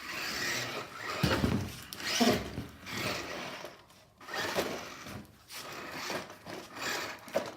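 Irregular knocks and scrapes of a toy remote-control car bumping over and against the pieces of a home-made obstacle course.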